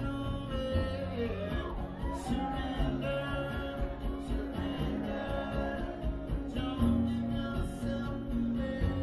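Live acoustic guitar music, strummed, with a man's voice sliding up and down in a wordless vocal line about one to two seconds in.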